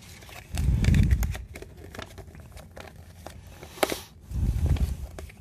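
Handling noise on a tabletop: a paper instruction sheet rustles as it is picked up and unfolded, with two dull low thumps from things being set down or handled, about half a second in and again near the end.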